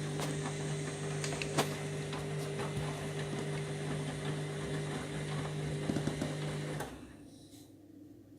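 Candy washing machine's drain pump humming steadily as it pumps out water, with scattered clicks and rattles, then cutting off about seven seconds in, leaving a much fainter hum.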